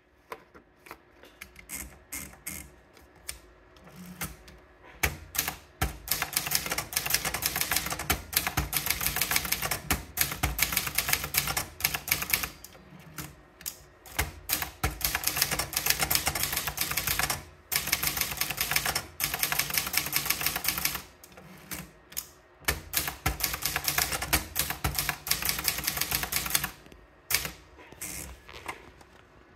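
Brother Deluxe 800 portable manual typewriter being typed on. Single keystrokes come slowly at first, then fast runs of clattering key strikes broken by a few short pauses, thinning to scattered strokes near the end.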